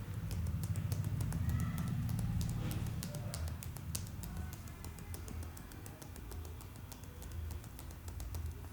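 Head massage by hand: a rapid, irregular run of small crackling clicks from fingers working the scalp and hair, over a low rumble of hands moving close to the microphone.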